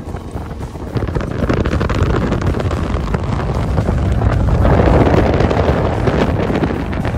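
Wind buffeting the microphone over the running of a boat's outboard motor and water rushing past the hull as the boat travels at speed. It gets louder about a second in.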